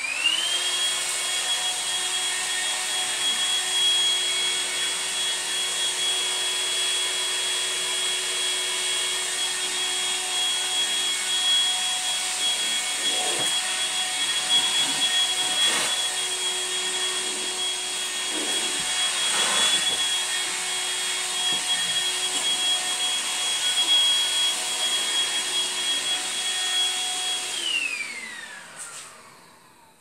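Goblin cordless vacuum cleaner's handheld unit switched on, its motor whining up to speed and then running steadily. It is switched off near the end, the whine falling as the motor winds down.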